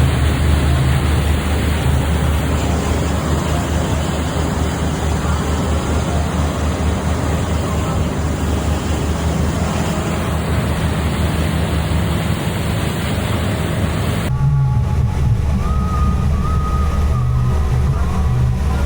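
Boat engine running steadily under way, with wind on the microphone and rushing water over it. About fourteen seconds in, the wind and water noise drops away abruptly, leaving the engine's low drone.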